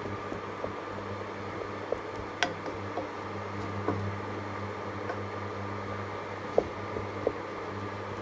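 A wooden spoon stirring onion skins in water in a metal pot, with a few sharp knocks of the spoon against the pot at uneven intervals, the loudest near the end. A steady low hum runs underneath.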